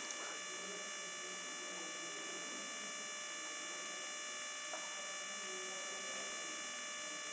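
Steady electrical hum with a constant high-pitched whine, and one faint click a little under five seconds in.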